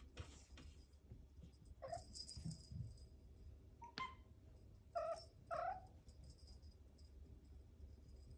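Ragamuffin kitten giving several short meows: one about two seconds in, another near four seconds, then two close together around five seconds.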